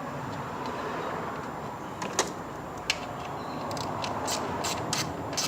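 Sharp clicks and taps from hand work on an ignition coil as it is bolted down and its connector pushed on, a few isolated ones and then a quicker run near the end, over a steady background hiss.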